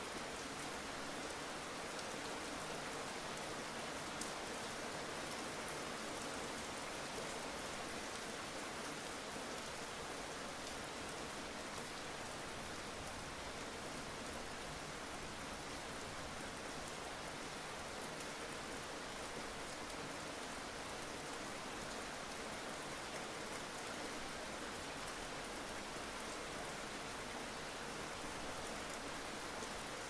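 Steady rain falling, an even hiss of many drops with faint scattered individual drop ticks and no change in intensity.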